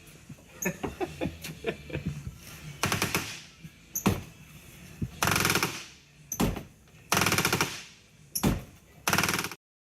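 Frozen bus door hinge creaking as the door is swung back and forth. It gives short grinding, rattling creaks about every two seconds, with sharp clicks in between and a cluster of small clicks early on. The hinge is seized and is being worked free with penetrating lubricant. The sound cuts off suddenly near the end.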